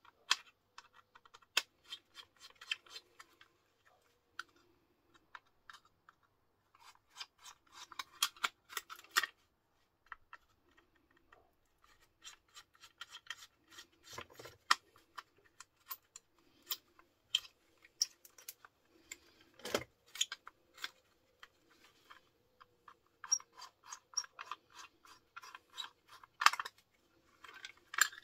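A screwdriver clicking and scraping against a plastic electrical fitting being taken apart by hand. The small clicks come in irregular bursts, with a sharper snap about twenty seconds in.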